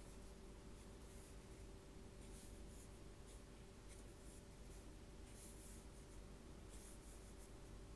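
Thick felt-tip marker scratching on sketchbook paper, faint, in a string of short strokes with brief pauses between them.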